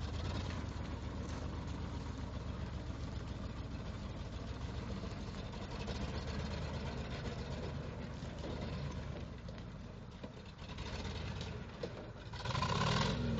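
Ford 351M V8 of a 1979 F-250 idling roughly, an engine that has sat unused for twelve years, with a short louder burst near the end.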